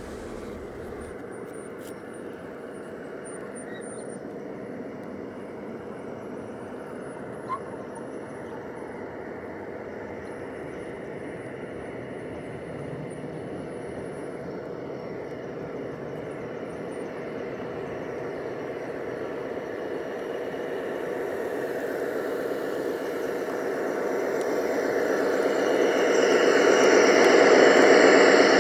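G-scale model freight train rolling by, a steady rumble of metal wheels on the rails that grows louder toward the end as the rear helper diesel locomotive comes up close. A single short click about seven seconds in.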